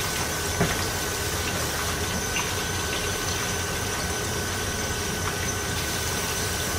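Seasoned French fries deep-frying in hot oil in a pan: a steady sizzling hiss, with a light pop about half a second in.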